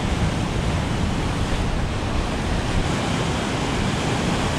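Heavy surf breaking and washing in foam over a rocky reef shoreline: a steady, unbroken rush of water noise.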